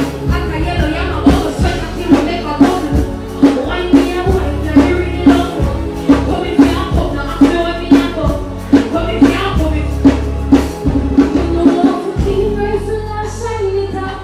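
A loud dancehall beat through a concert PA, with heavy bass and a steady kick about three beats every two seconds, and a voice singing on the mic over it.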